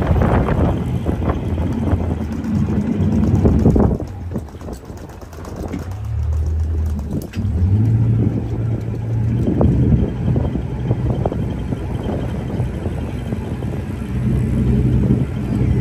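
Wind noise on the microphone and water rushing past the hull of a small motorboat under way, with the steady low hum of its motor. It is briefly quieter about four seconds in, and the hum stands out more clearly from about six seconds on.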